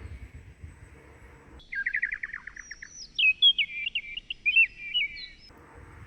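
A songbird singing, starting about a second and a half in: a quick run of about ten short down-slurred notes, then a higher, varied warble, ending about four seconds later. The outdoor background drops away completely while the song plays, as with a clean inserted recording.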